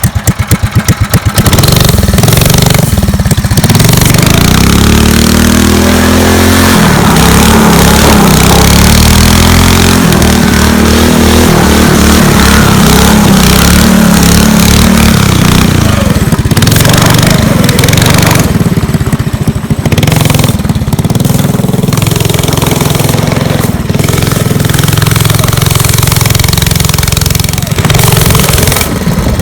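Small engine of a ride-on vehicle running under load, its pitch rising and falling several times in the first ten seconds as the throttle changes, then holding steadier with a rough rumble.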